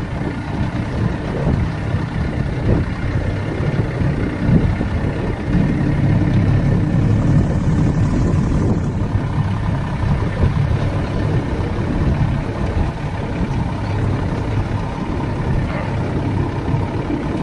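Small motorboat's engine running steadily under way, a continuous low hum.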